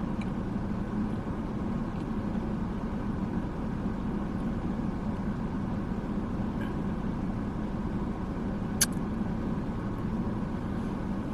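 Steady low hum of a car running at idle, heard from inside the cabin, with one sharp click about nine seconds in.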